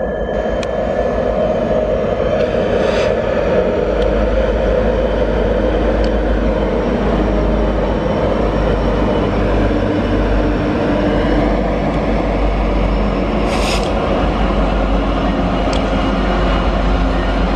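Two EMD SD70LC diesel-electric locomotives hauling a general freight train past at speed: a steady diesel drone over the rumble of the wagons' wheels on the rails, with two brief high hisses about three and fourteen seconds in.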